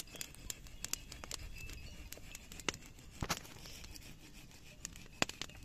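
Faint, irregular snaps and clicks of dry twigs being broken off a fallen branch by hand, with a few louder snaps near the middle and near the end.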